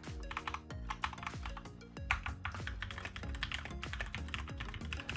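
Typing on a Keychron K10 full-size mechanical keyboard with brown tactile switches: a quick, continuous run of key clicks, with background music underneath.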